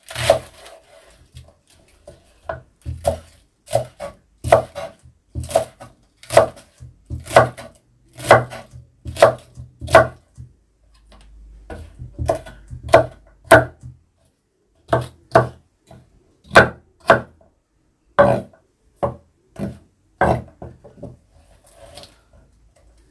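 Kitchen knife slicing cabbage on a wooden cutting board, the blade knocking on the board in a steady series of chops, one to two a second, with two short pauses.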